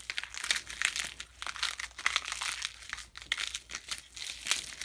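Dense, irregular crinkling and crunching of a dry, brittle material being crushed by hand, a Foley sound effect being performed: many small crackles in quick succession.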